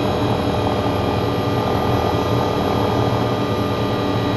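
Cockpit noise of an MD500E helicopter in flight: its Rolls-Royce 250-C20B turbine and rotors running steadily. A whine of several high tones sits over a low rumble.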